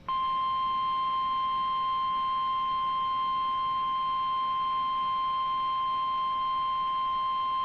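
Emergency Alert System attention signal: a single steady, loud alarm tone near 1 kHz, the National Weather Service's 1050 Hz warning tone, starting abruptly and held unchanged, announcing an emergency warning message.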